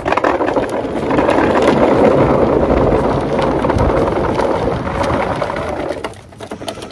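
A plastic bag of boilies being forced down into a hard plastic rod tube: a dense run of plastic crinkling and small rattles from the shifting bait balls, stopping about six seconds in.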